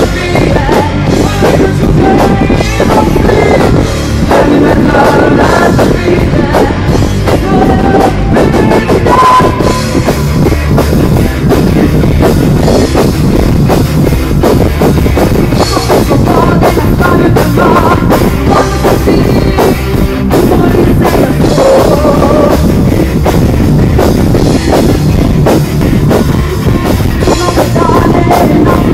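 Rock band playing live: a woman singing over electric guitars, bass and a drum kit, very loud and captured on a mobile phone's microphone.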